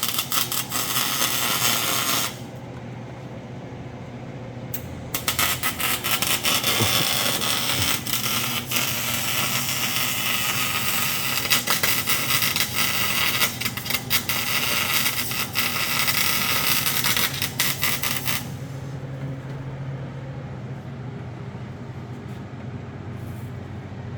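Welding arc crackling and sizzling in two bursts, a short one at the start and a long one of about thirteen seconds, as subframe connectors are welded to a car's frame. A low steady hum continues underneath after the welding stops.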